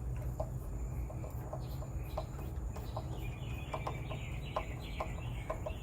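Small clicks and taps of deadbolt lock parts being handled and taken apart to flip a piece around, over a steady low hum. From about halfway a high, repeated chirping joins in.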